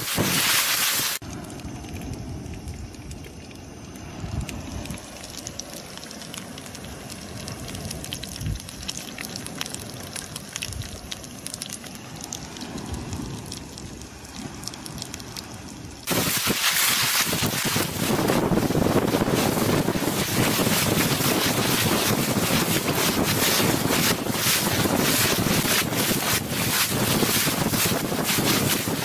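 Wind buffeting the microphone as a loud, even rushing noise. It drops away about a second in to a quieter stretch with faint scattered ticks, and returns loud and steady about halfway through.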